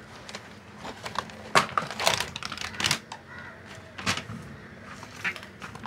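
Handling noise: an irregular run of sharp clicks and rustles as objects are picked up and moved close to the microphone.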